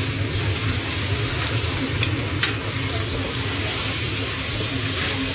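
Food sizzling in a hot pan as it is stir-fried, a steady hiss with a couple of faint scrapes or ticks about two seconds in, over a low steady hum.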